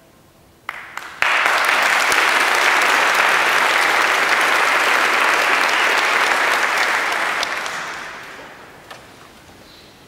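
Audience applauding at the end of a piece: a couple of early claps about a second in, then full, steady applause that dies away after about seven seconds.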